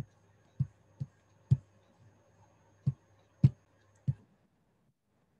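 Seven short, sharp computer mouse clicks at uneven intervals, over a faint steady electrical hum. The sound then cuts out to dead silence near the end.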